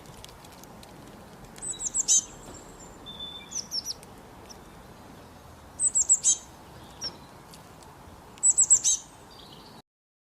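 A songbird singing: three short bursts of rapid, high, falling notes a few seconds apart, with softer calls between, over a faint steady hiss. The sound cuts off suddenly near the end.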